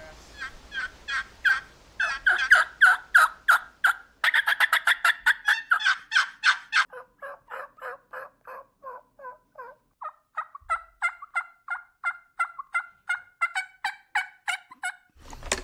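Hen wild turkey yelping: long runs of short, evenly spaced yelps, about four a second at first, then quicker series, some stepping down in pitch, with a few abrupt breaks between series.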